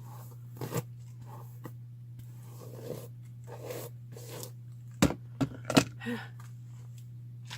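A comb dragging through wet, knotted hair: scattered scrapes and rustles, with three sharp clicks or knocks about five to six seconds in. A low steady hum lies underneath.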